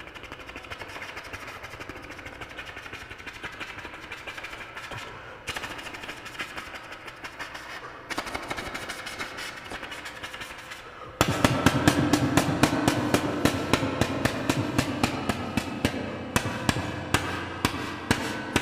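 Mouth-made mimicry of a battle scene. A fainter steady whir, in the manner of a helicopter, runs first. About 11 seconds in, a loud rapid machine-gun burst breaks in, thinning to scattered single shots near the end.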